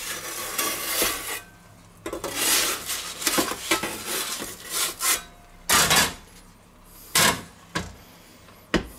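Two metal pizza peels scraping and rasping over the stone of an electric pizza oven as the pizza is turned. This is followed by two louder clattering knocks and a click near the end.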